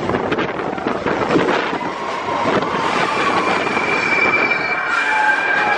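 Expedition Everest roller coaster train running fast along its track, its wheels rumbling and rattling. A high, steady squeal joins in about three seconds in.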